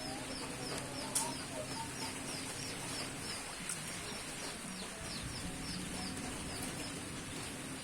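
Rural outdoor ambience: a short, high falling chirp repeats about three times a second over a steady hiss, with one sharp click about a second in.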